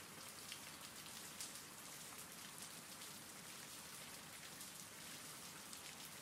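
Soft, steady rain: an even hiss with scattered small drop ticks.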